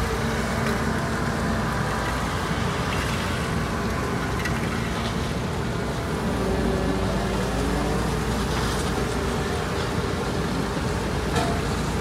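Dynapac tandem road roller's diesel engine running steadily as it compacts fresh asphalt.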